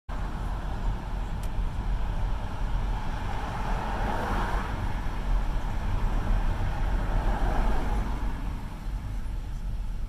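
City road traffic: cars driving past close by with a steady low rumble, and two passing cars swelling louder about four and seven and a half seconds in.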